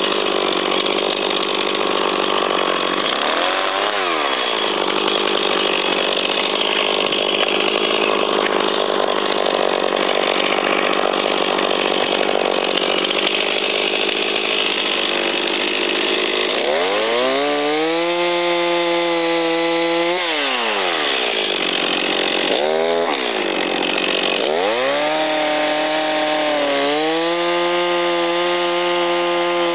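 Stihl MS 250 two-stroke chainsaw cutting through ash juniper for roughly the first half. It then revs freely: the engine climbs in pitch, drops back toward idle about twenty seconds in, blips once, and climbs again to run at high revs near the end.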